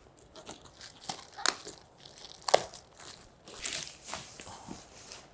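White protective wrapping crinkling and rustling as it is handled and pulled off a projector, in irregular crackles with the loudest about two and a half seconds in.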